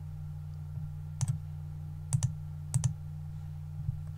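Computer mouse clicking a few times, some clicks in quick pairs, over a steady low electrical hum.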